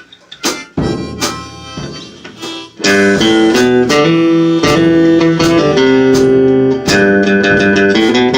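Harmonica and guitar played together by a one-man band during a sound check: a few scattered notes and strums, then full playing starts about three seconds in.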